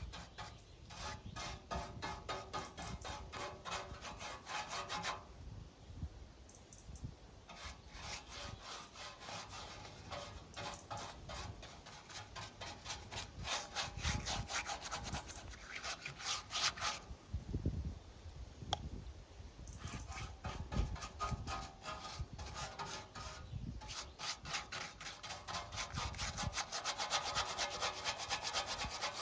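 Rapid back-and-forth hand scraping and scrubbing strokes on a lawn mower's metal deck, in several runs with short pauses between them.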